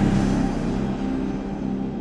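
Background music of slow, sustained low notes, gradually fading.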